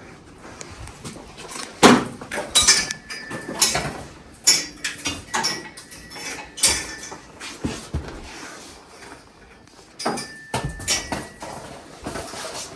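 Metal brake line tubing being worked through a car's frame: irregular clanks, knocks and scrapes of the tube against the chassis, a few with a brief metallic ring.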